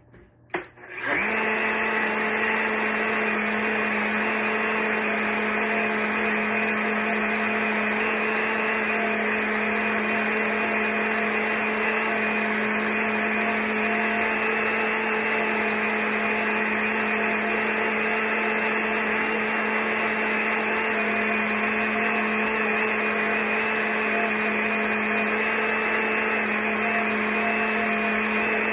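Personal single-serve blender, its cup pressed down on the motor base, starting with a click about a second in and then running steadily at one constant pitch while it blends a thick green drink smooth.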